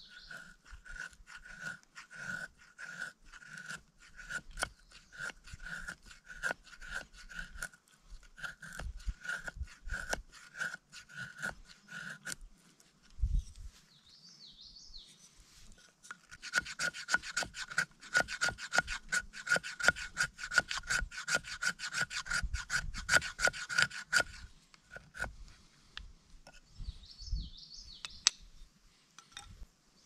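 Knife blade shaving thin curls off a split board for fire-starting tinder: a steady run of scraping strokes, then after a short pause a faster, louder run of strokes.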